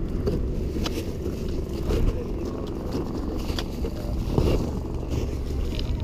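Steady low rumble of wind on the camera microphone, with scattered sharp clicks and knocks of gear being handled.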